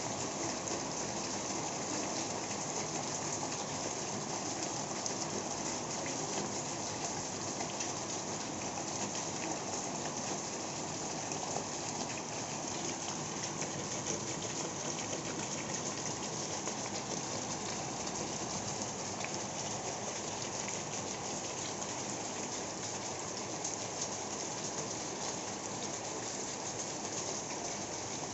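Rainwater gushing from the broken-off end of a drainpipe and splashing onto a flooded concrete floor, with rain falling on the standing water; a steady, even splashing.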